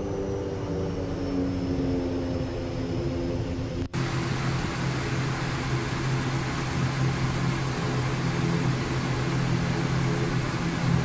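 Steady drone of the ATR 72-600's running turboprop engines heard inside the cockpit, with several steady hum tones. About four seconds in, the sound drops out for an instant and comes back hissier.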